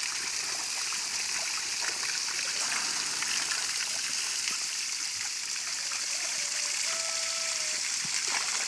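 Water from a hose spraying and splashing onto rocks and wet mud, a steady rushing hiss.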